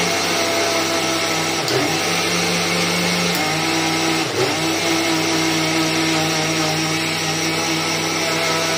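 Mixer grinder's motor running steadily with its steel jar fitted, an even whine with brief dips in pitch about two seconds in and again past four seconds. This is the test run after its burnt two-pin plug was replaced, showing the repair worked.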